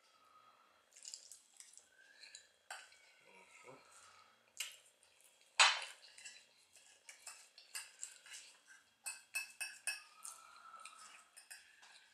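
Metal fork cutting French toast and scraping and tapping against a plate: a run of sharp clinks, some briefly ringing. The sharpest strike comes about five and a half seconds in, and a quick cluster of clinks follows near the end.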